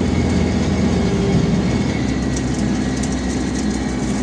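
Farm tractor engine running steadily while pulling a bush hog rotary cutter, a low even drone with a faint steady whine above it.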